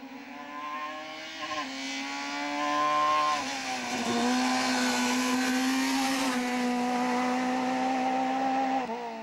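Fiat Punto rally car's engine under hard throttle. It climbs in revs, drops back with a gear change, climbs again to its loudest as it comes close, then holds steady revs as it drives past and away.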